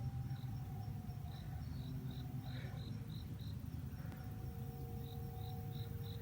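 Distant outdoor tornado warning sirens sounding faintly as steady tones, a higher one throughout and a lower one joining about four seconds in, during a siren test. Crickets chirp in short runs over a low rumble.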